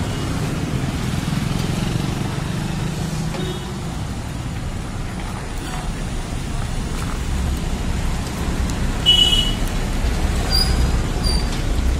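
Road traffic noise: the steady rumble of engines and tyres of passing cars, growing heavier in the second half. A short high-pitched tone sounds about nine seconds in, and two brief high chirps follow near the end.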